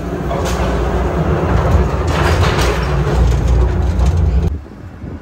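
Skyride cable car running along its cable: a steady low rumble with some clatter, cutting off abruptly about four and a half seconds in.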